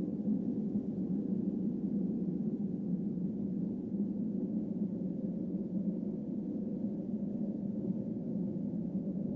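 Steady low drone with a gong-like ring, a sustained soundtrack drone laid under the footage. An upper tone edges slightly up in pitch near the end.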